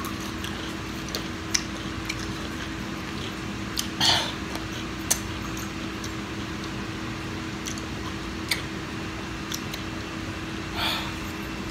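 People chewing dill pickle slices dipped in candy powder: a few light mouth clicks and two short breathy noises, about four seconds in and near the end, over a steady low hum in the room.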